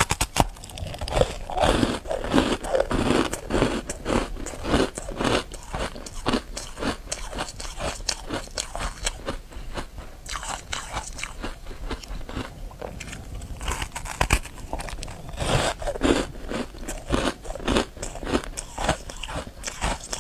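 Ice coated in matcha powder being bitten and chewed close to the microphone: a steady run of crisp crunches, several a second, as the ice breaks between the teeth. Louder biting comes near the start and again about three-quarters of the way through.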